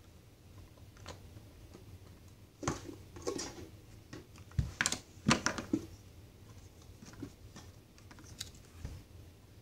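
Hands moving small plastic mini bins and cups on a hard floor: a run of light clicks and knocks, busiest and loudest from about three to six seconds in.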